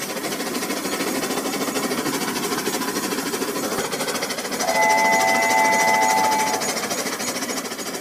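Battery-powered toy train running along its plastic track: a steady buzzing clatter of a small motor, gears and wheels. From about halfway through a steady electronic tone of a few notes sounds for about two seconds.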